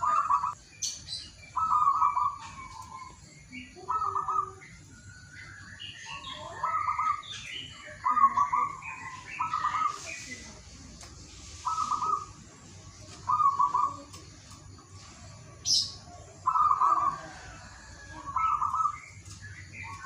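Zebra dove (perkutut) cooing: a string of short, staccato cooing phrases, each about half a second, repeated every second or two.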